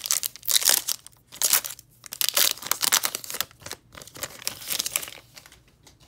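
Trading card pack's foil wrapper crinkling and tearing as it is ripped open, in a run of rustling bursts that die away near the end.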